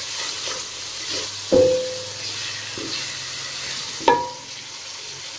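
Onion-tomato masala with ground spices and green chillies sizzling in oil in a metal kadhai as it is stirred and fried down with a spoon. The spoon knocks the pan twice, about a second and a half in and again about four seconds in, each time leaving a short metallic ring.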